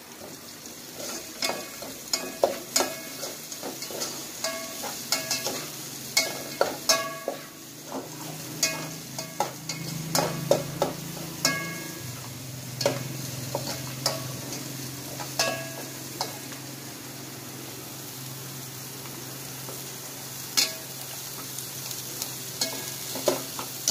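Chopped onion and garlic sizzling in oil in an aluminium pot while a metal spatula stirs and scrapes, clinking sharply against the pot many times, more often in the first part and less toward the end.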